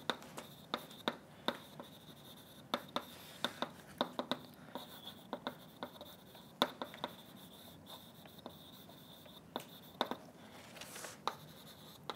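Chalk writing on a blackboard: an irregular run of sharp taps and short scratches as letters are written, several a second with brief pauses.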